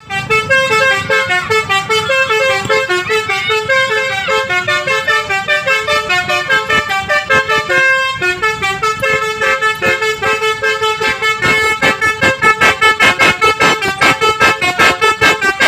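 Basuri telolet multi-tone bus horn playing a tune of short, stepped notes. About halfway through it changes to fast, evenly pulsed blasts, about four a second.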